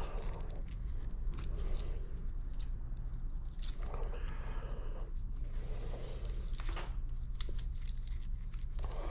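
Steel feeler gauge blades clicking and scraping as they are picked from the set and slid into the gap between camshaft base circle and bucket tappet to check valve clearance. A steady low hum runs underneath.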